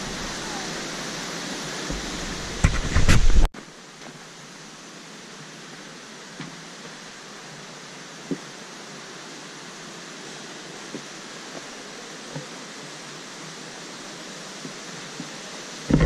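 Steady rushing hiss of a waterfall, with a brief loud low rumble about three seconds in. The sound then cuts off abruptly to a quieter, even hiss with a few faint ticks.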